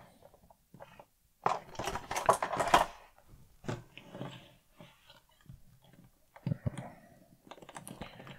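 Handling noises from a small plastic action figure and its packaging. First a burst of plastic clicking and rattling as the blister-card packaging is set aside. Then scattered small clicks and taps as the figure is adjusted on its clear plastic display stand on a wooden tabletop.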